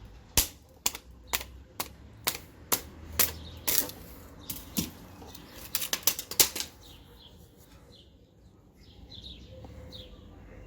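Wooden baton striking the spine of a slip-joint folding knife to drive it through a small stick: a quick run of sharp knocks, about two a second, that stops about six and a half seconds in. Birds chirp near the end.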